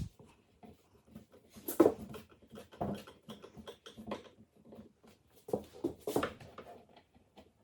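Irregular light clicks and knocks of hands working on a flat-pack IKEA Kullen chest of drawers, screwing in the plastic drawer stoppers and handling the drawers; a few knocks, about two, three and six seconds in, are louder than the rest.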